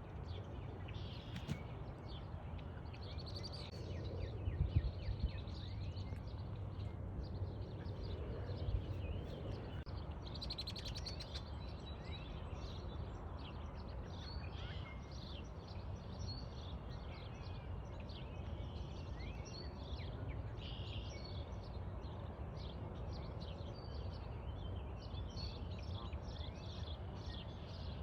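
Outdoor ambience: a steady low rumble with many short, high bird chirps throughout. Two brief low thumps stand out, about five and about nine seconds in.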